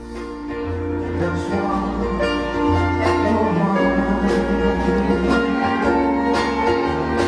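Instrumental string-band music: fiddle and plucked strings over electric bass and drums, fading in at the start.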